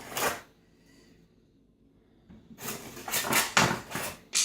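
Hard laser-cut acrylic printer parts and their packaging being handled: a knock at the start, a short pause, then about two seconds of clattering and rustling with several sharp knocks.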